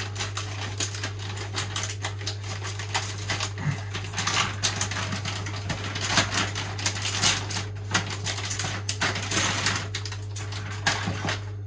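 Thin plastic bag crinkling and rustling in the hands as it is unwrapped, with irregular crackles that grow busier and louder in the middle as a plastic tray is pulled out. A steady low hum runs underneath.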